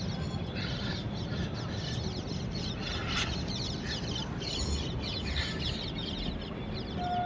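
Steady low rumble of a train, with birds and chickens calling intermittently over it. A steady horn note begins just before the end.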